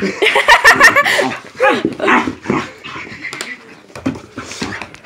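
A dog giving a quick run of short whining, yelping calls that rise and fall in pitch. They are loudest in the first second or so, then come more quietly.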